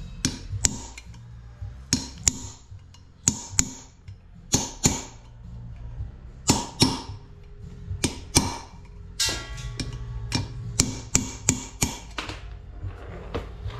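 Ball-peen hammer striking steel stitching screws set into a crack in a cast-iron Ford Model T cylinder head, peening them over in cold metal stitching. Sharp ringing metallic strikes come mostly in pairs about a second and a half apart, then quicken to about three a second near the end.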